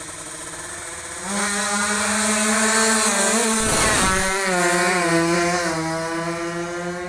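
Two-stroke drag bike engine held at high revs, a loud, high, buzzing note that rises sharply about a second in and holds steady. A brief rushing burst comes midway, then the note slowly fades.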